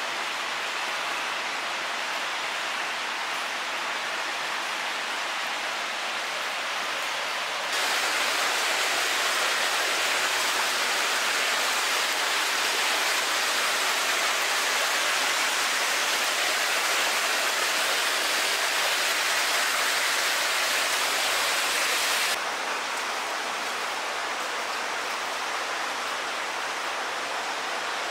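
Rushing floodwater flowing through a concrete tunnel: a steady, even rush that gets louder abruptly about 8 seconds in and drops back just as abruptly near 22 seconds.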